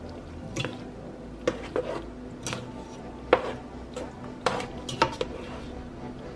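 Plastic slotted spoon stirring cooked macaroni in a pot, with irregular knocks and scrapes as the spoon strikes the pot's sides and bottom.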